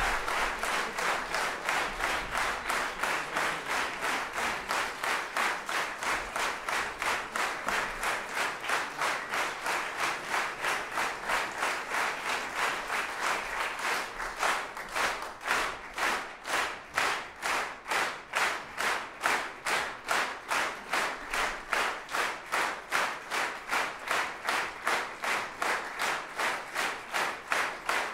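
Audience applause that settles into steady rhythmic clapping in unison, about two and a half claps a second. The claps grow crisper and more distinct from about halfway through.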